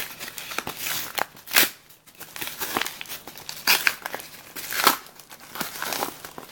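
Packaging being crinkled and torn open by hand, in irregular rustles with a few sharper, louder rips.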